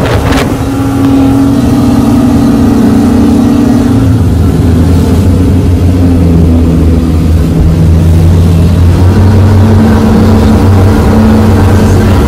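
Twin Suzuki 350 hp outboard engines running at speed with a steady drone, together with the rush of the churning wake. The pitch shifts slightly about four seconds in and again about nine seconds in.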